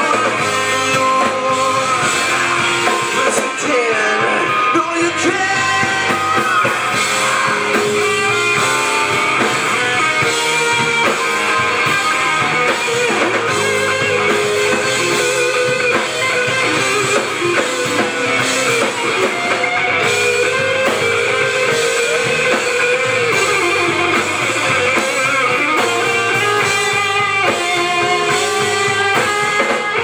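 Rock band playing live: electric guitars, keyboard and drum kit, with a voice singing over them, heard from the crowd in a club.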